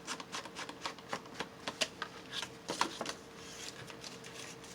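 Paper and card being handled at a craft table: irregular light rustles and small taps, over a faint steady hum.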